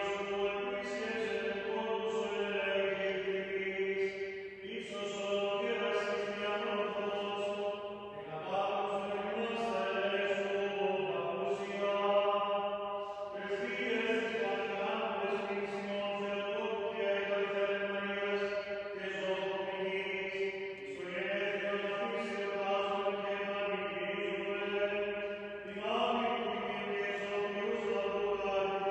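Byzantine chant in Greek: a single male voice sings long held notes that step slowly up and down, with brief pauses for breath.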